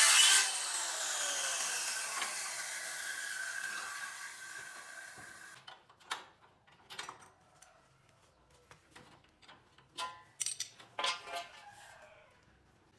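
Power saw cutting wood stops about half a second in, and the blade spins down with a falling whine that fades over about five seconds. Then come a few light knocks and clicks.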